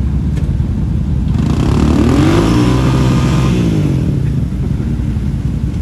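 Can-Am Maverick X3 side-by-side's engine revving up and back down over about two and a half seconds, its tyres spinning and flinging mud as it tries to climb out of a creek, over a steady engine drone.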